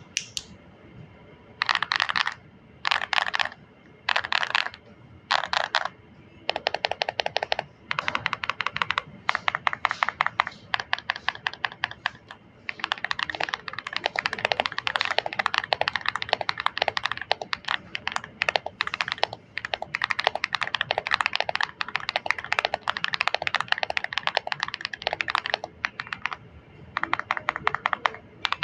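Lingbao K75 75% mechanical keyboard being typed on: a few short bursts of keystrokes at first, then fast, near-continuous clicking with brief pauses.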